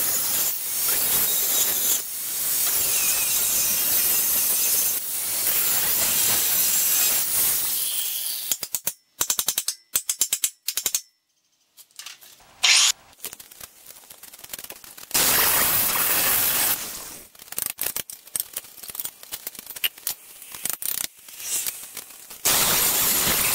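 Angle grinder grinding rusty steel square tubing. It runs as a steady grind for about eight seconds, then stops. It comes back in short bursts with gaps between them, and a steady grind starts again near the end.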